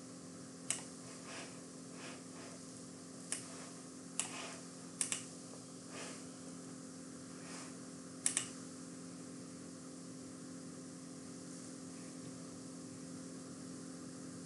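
About six sharp computer mouse clicks in the first half, two in quick succession near the middle, over a steady low hum.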